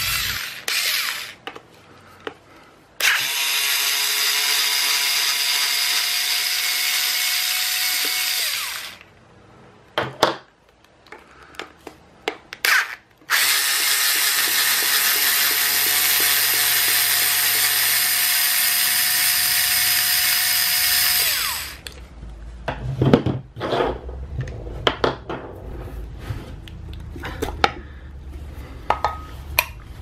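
Odin cordless electric screwdriver running in two long steady runs of about six and eight seconds, driving screws out of a pedestrian crossing button's plastic housing, each run winding down as it stops. Clicks and knocks from handling the housing and screws come between the runs and after them.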